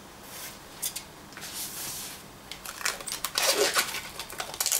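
Plastic cling film being pulled off its roll and handled: a crinkly rustle that grows louder about three seconds in, after a few light taps and rustles.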